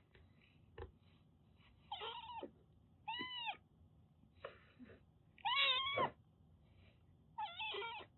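Siamese-mix kitten meowing five times, short arched calls about a second apart, the fourth the loudest, complaining at being touched. A single light tap under a second in.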